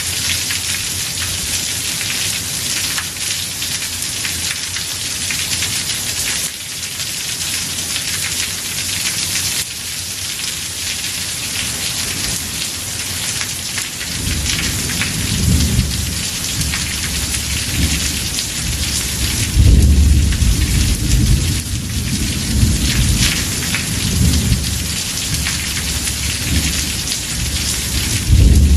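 Heavy rain falling steadily on a house roof. From about halfway through, thunder rumbles low underneath, loudest about two-thirds of the way in and again near the end.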